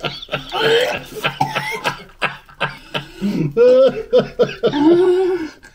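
People making wordless voice sounds while eating dry dog biscuits: coughing and chuckling, then a few drawn-out pitched vocal noises in the second half.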